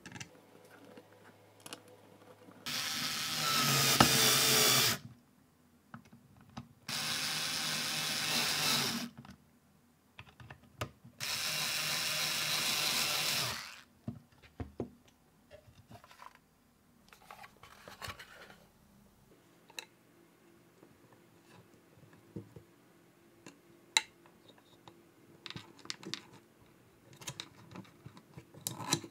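Electric screwdriver driving three small self-tapping screws into a 3D-printed plastic panel, each run about two seconds long. Afterwards come light clicks and knocks of plastic parts being handled.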